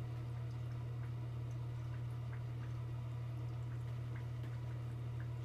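Steady low hum of aquarium equipment, with faint scattered ticks and drips of water.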